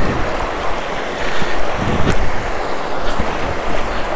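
Fast-flowing river water rushing steadily, with a few brief splashes from wading through it on foot.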